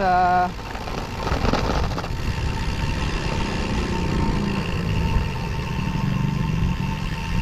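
Wind rushing and buffeting over an action camera's microphone on a moving road bike, mixed with tyre noise on a concrete road: a steady, dense rumble.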